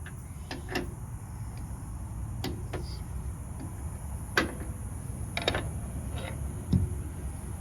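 Crescent wrench being fitted over a ratchet handle: about eight short, irregular metal-on-metal clinks and taps.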